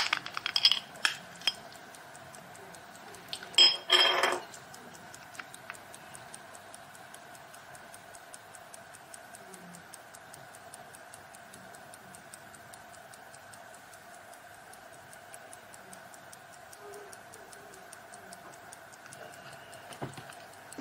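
Swiss pocket watch movement ticking steadily and evenly: the watch is running. In the first few seconds there are a few louder clicks and knocks from the gold-plated case being handled.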